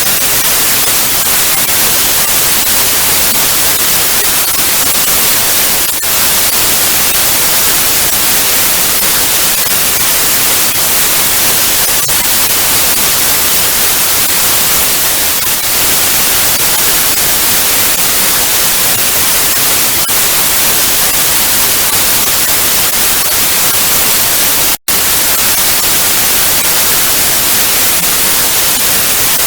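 Television static: a steady, loud hiss, strongest in the high frequencies, with a split-second dropout about 25 seconds in.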